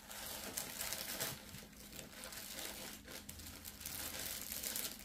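Irregular crinkling and rustling of a small clear plastic bag being handled.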